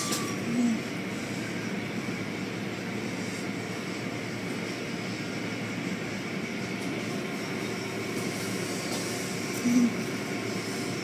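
Car wash equipment running: a steady rushing noise, with a short blip about half a second in and another near the end.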